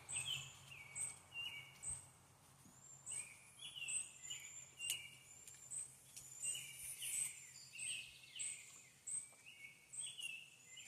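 Birds at a backyard feeder chirping and calling: a steady run of short, high notes, one every half second or so.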